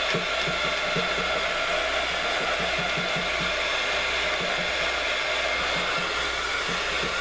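Handheld craft heat gun running steadily, blowing hot air to dry paint on a paper art page: an even rush of air with a faint steady motor whine.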